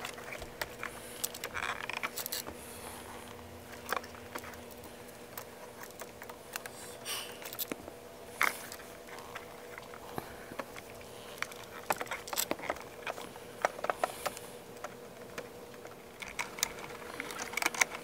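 Scattered small clicks, scrapes and knocks of a wall outlet being unscrewed and pulled out of its electrical box, the receptacle and its wires rattling against the box, busier near the end. A faint steady hum runs underneath.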